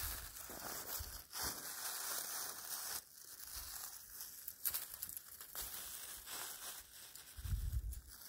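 Rustling, crinkling noise with scattered sharp clicks, and a low rumble near the end.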